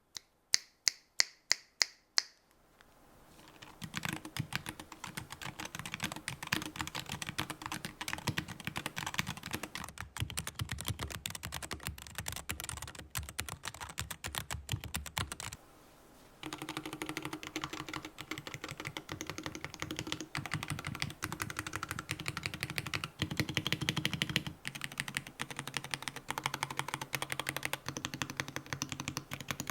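Fast typing on a custom keyboard fitted with GEONWORKS Raptor HE magnetic switches: dense clacking keystrokes with a short break about halfway through. It opens with about eight sharp, ringing ticks.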